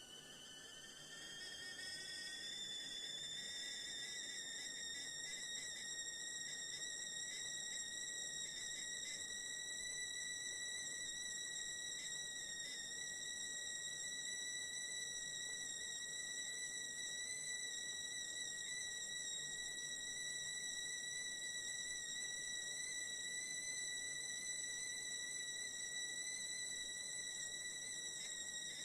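UP! Classic stovetop kettle whistling at the boil. A single high whistle rises in pitch and grows louder over the first couple of seconds, then holds one steady note.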